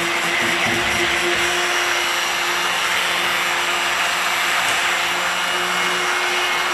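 Handheld immersion (stick) blender running steadily in a bowl of raw cold-process soap batter, a constant motor hum with a hiss, blending the oils and lye water toward trace.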